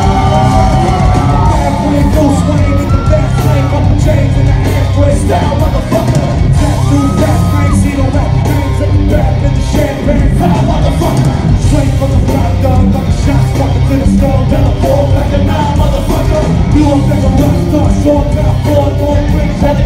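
Live rap-rock concert: a band playing loud amplified music with a heavy bass, a rapper's vocals over it, heard from within the crowd.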